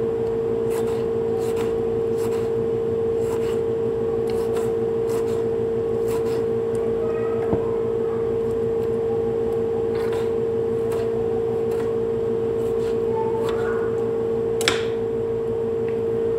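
A steady mid-pitched hum throughout, with scattered light clicks and taps from a knife cutting tomato and parsley by hand, and one sharper tap near the end.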